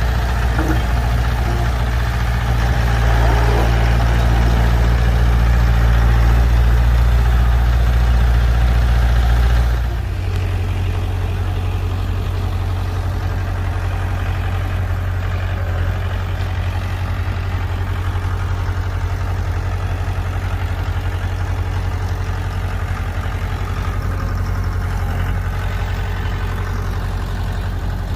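Heavy diesel earthmoving engine running loudly, then dropping abruptly to a lower, quieter note about ten seconds in and running on steadily.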